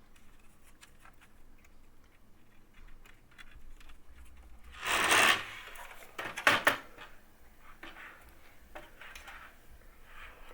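Hands working cables and parts inside a PC case: faint scattered clicks, a loud scraping rub about five seconds in, then a few sharp clicks of plastic and metal parts.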